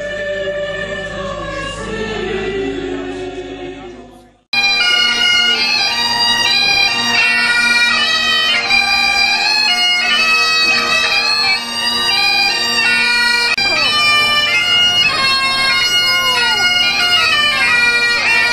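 Two Highland bagpipes played while marching: steady drones under a shifting chanter melody, starting abruptly about four seconds in. Before the pipes, a few seconds of singing voices fade out.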